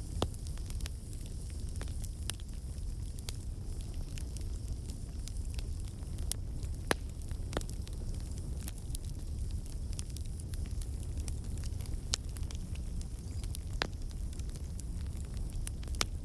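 Campfire burning, wood crackling with sharp pops every second or two over a steady low rumble.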